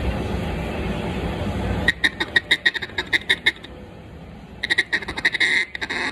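A duck call with a bois d'arc (Osage orange) wooden insert, test-blown while it is being tuned. It gives a quick run of about a dozen short quacks, then after a pause a second run with a couple of longer quacks near the end. A steady rushing noise fills the first two seconds before the calling starts.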